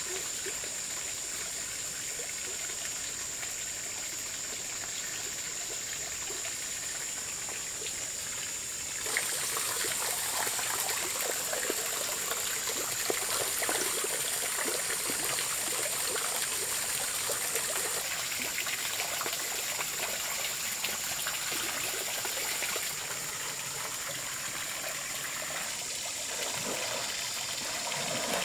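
Water trickling and running steadily, with a thin, steady high-pitched tone over it. The water grows louder and busier about a third of the way in, then eases back about two thirds through.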